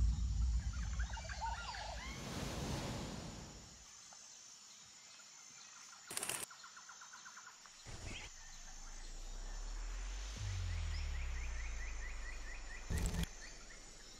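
Birds chirping and calling in short trilled series over a background hiss. A whooshing swell comes about two seconds in, brief sharp noise bursts come a few times, and a low hum runs under the second half.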